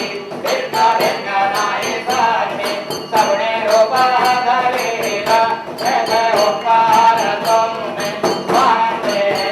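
Devotional chant-style singing over music with a quick, steady beat of jingling percussion.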